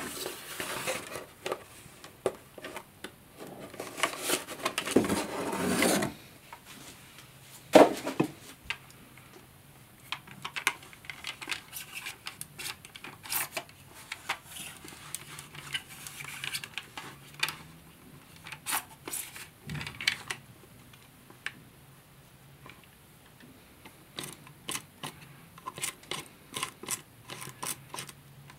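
Cardboard packaging rustling and scraping as a Dyson V7 motorhead brush head is pulled out of its cardboard insert, then scattered small clicks and knocks of the plastic head being handled and turned over, with one louder knock about eight seconds in.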